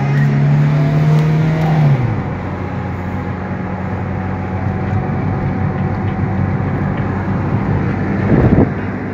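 Car engine and road noise heard from inside the cabin while driving. The engine note drops to a lower steady pitch about two seconds in, as the car eases off the throttle. A brief louder noise comes near the end.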